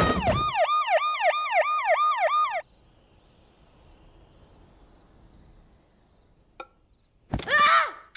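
Emergency siren wailing in a fast yelp, its pitch swinging up and down about four times a second. It cuts off after about two and a half seconds into a faint, quiet hush, with a small click and a short pitched squeak near the end.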